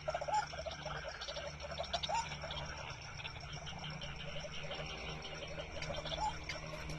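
Frogs croaking at night in short rising notes that come in clusters, over a steady high trilling of insects.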